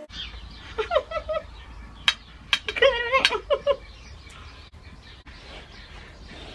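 Chickens clucking in two short bouts of pitched calls, with a few sharp clicks in between, over a steady low rumble.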